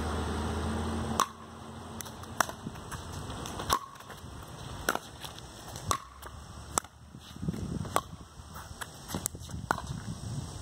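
Pickleball rally: paddles strike a hard plastic pickleball back and forth, giving sharp pops roughly every second. A steady low rumble cuts off about a second in.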